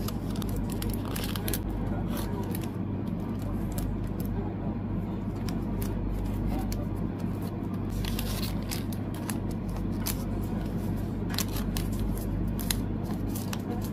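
Clear plastic photocard sleeves crinkling and rustling as cards are slid in and handled, with scattered sharp crackles over a steady low hum.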